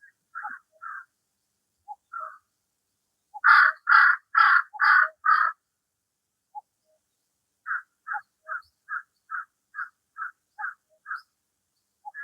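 Crows cawing: a bout of five loud caws about two a second, then after a pause a longer run of about nine fainter, quicker caws. Short faint chirps from other birds fall in between.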